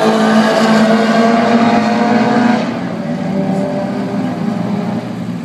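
High-performance car engines running hard at steady high revs, then the loud engine note drops away about two and a half seconds in, leaving a quieter engine hum.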